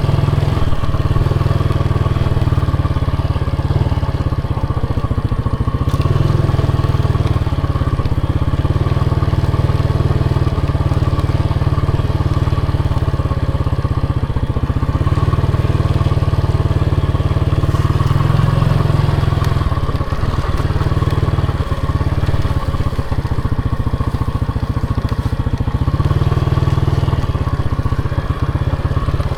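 Motorcycle engine running while the bike is ridden, loud and fairly steady.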